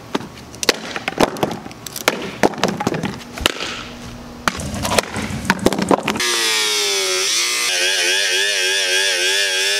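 A heavy wooden log struck repeatedly against a plastic coolant expansion tank and the asphalt, a string of sharp knocks; the tank does not break. About six seconds in, an angle grinder runs, a steady high whine that wavers in pitch as it cuts into the tank.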